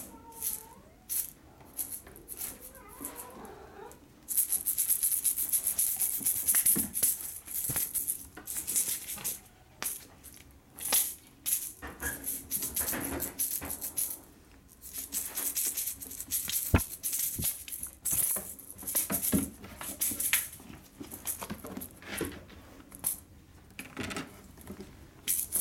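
A cat toy rattling, shaken in irregular bursts of one to several seconds, with short pauses between them.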